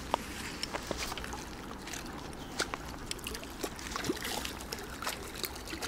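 A hooked mirror carp splashing and thrashing at the water's surface close to the bank, a run of small, irregular splashes.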